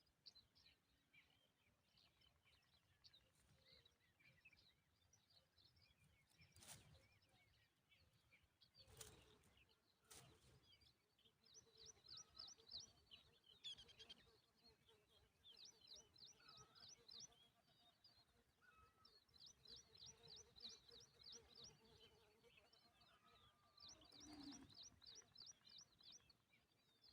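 Faint, rapid high chirping from common tailorbirds, coming in several quick runs of short chirps. There are a few soft knocks before the first run.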